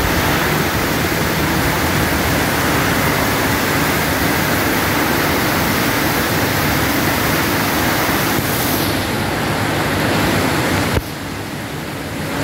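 Heavy rain pouring steadily, a dense even hiss. About eleven seconds in it abruptly becomes quieter.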